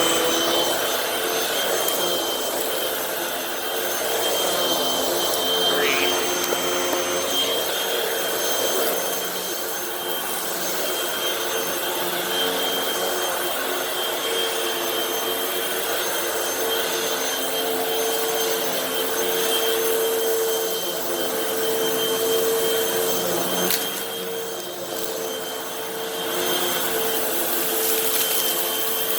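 Hoover WindTunnel High Capacity Pet upright vacuum running steadily while it picks up a heavy spread of dirt and debris: a constant motor hum and whine over rushing air. There is one sharp click about three-quarters of the way through.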